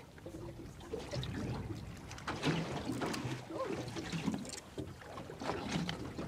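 Water lapping and slapping irregularly against the hull of a small fishing boat rocking on the open-ocean swell.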